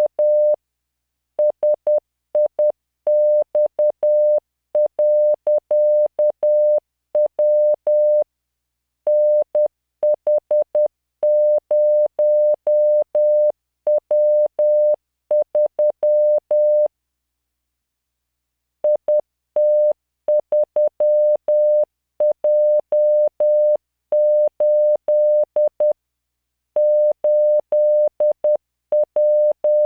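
Morse code sent at 10 words per minute by CW training software: a 600 Hz tone keyed on and off in dots and dashes, spelling out random five-character groups. There is a pause of about two seconds just past the middle.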